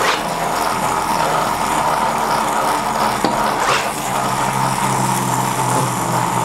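Fidget Peg Top gyro toy top whirring steadily as it spins upright on a wooden tabletop, its internal gyro wheel running. A light click comes about four seconds in.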